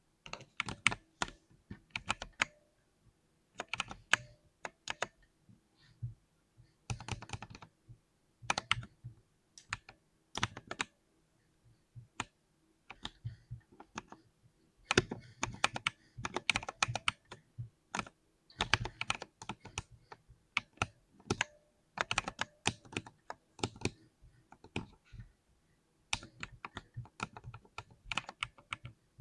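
Mechanical keyboard being typed on in bursts of rapid keystrokes with short pauses between them, each key giving a deep, low-pitched clack.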